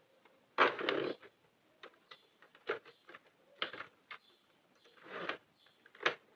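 Irregular small clicks and rustles of a Sentro 48-needle plastic circular knitting machine being worked by hand: plastic needle hooks are lifted and yarn is wrapped around them one by one. The loudest is a longer rustle about a second in.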